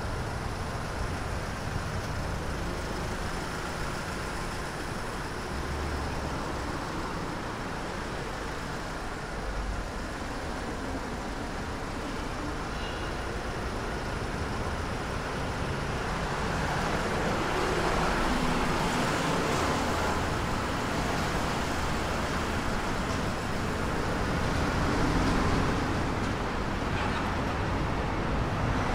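City street traffic: a steady hum of road noise with vehicles passing, louder from about halfway through.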